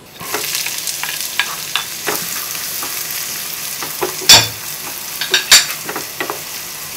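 Chopped onions, cumin seeds and dried red chillies sizzling in hot oil in a nonstick pan, stirred with a wooden spatula that scrapes and clicks on the pan. There are two louder knocks, about four and five and a half seconds in.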